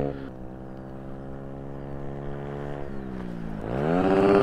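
Single-cylinder four-stroke engine of a 2019 Beta RR 125 LC supermoto, running with the dB-killer taken out of the exhaust. The engine note holds and sags slightly, dips about three and a half seconds in, then climbs sharply and grows louder as the bike accelerates toward the microphone.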